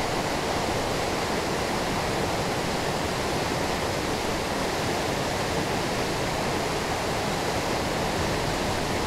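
Steady rush of a fast-flowing, storm-swollen river running over rocks.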